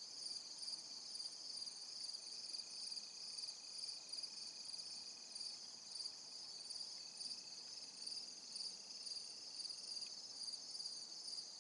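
Chorus of insects in the woods: a steady high chirring with an even pulse. A fainter, lower thin drone joins twice for a few seconds.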